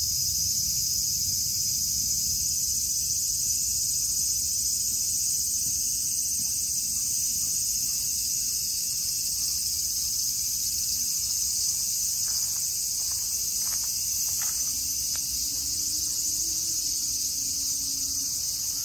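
A steady, high-pitched chorus of insects chirring without a break, with a low rumble underneath.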